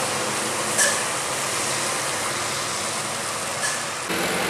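Road traffic on a wet road: a loaded truck and a motorbike passing close by, a steady wash of engine and tyre noise. Two brief sharp sounds come about a second in and near the end, and the sound changes abruptly just before the end.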